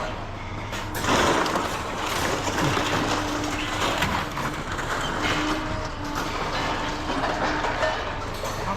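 Scrap metal clattering and scraping, with many knocks, over a steady low machine hum and faint squeals.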